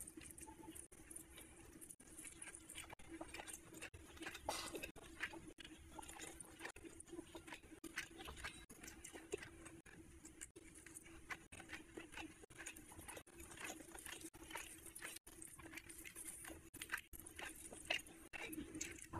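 Close-miked wet eating sounds: fingers squelching rice and chicken curry together on a plate, with chewing and lip-smacking, a quick irregular run of small clicks and crackles over a faint steady hum.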